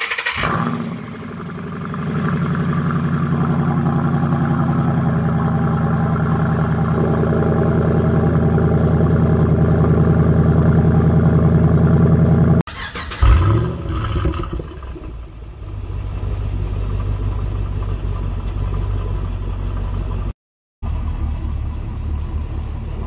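Ford Mustang Boss 302's 5.0-litre V8 just after a cold start on the silver key: it dips for a moment, then settles into a fast cold idle that creeps slightly higher until the sound cuts off suddenly about twelve and a half seconds in. After that a car engine idles more slowly and steadily, broken by a brief silence near the end.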